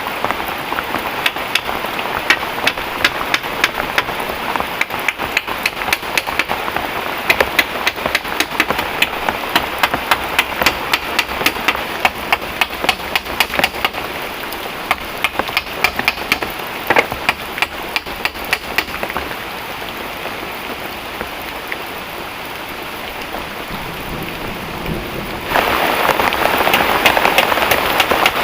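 Heavy rain falling, with many sharp drop hits over a steady hiss. The hits thin out and the rain goes quieter for a few seconds past the middle. About three seconds before the end it turns abruptly louder and denser.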